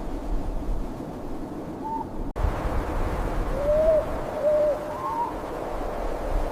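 An owl hooting: two short, arched hoots about half a second apart, then a higher brief call, over a steady low rumble of wind.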